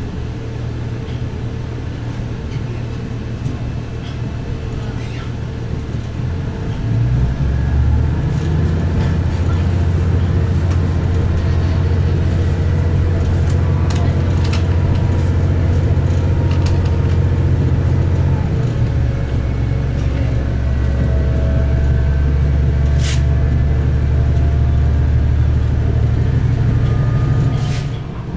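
Diesel railcar running along the line, heard from inside the carriage: a steady low engine drone that grows louder about seven seconds in as the engine works harder and steps to a slightly different pitch about two-thirds of the way through, with a few sharp clicks over it. The drone drops just before the end.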